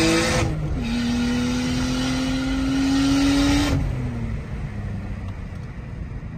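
Full-bolt-on Nissan Skyline R33's engine heard from inside the cabin, accelerating, with an upshift about half a second in where the pitch drops, then rising again in the next gear. A little past halfway the throttle lifts and the engine note falls away to a quieter, low cruising rumble.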